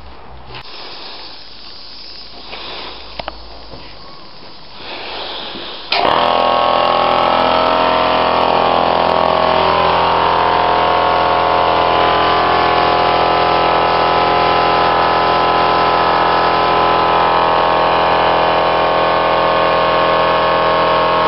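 Air compressor for a paint spray gun cuts in suddenly about six seconds in and then runs loud and steady, after a few seconds of quieter handling noise.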